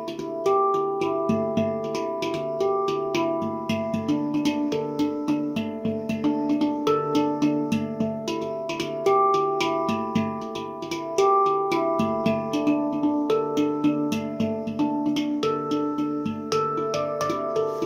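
Taopan mini handpan in the Dimelodia Extended scale, played with the fingers: a continuous flow of struck steel notes, several a second, each ringing on and overlapping the next.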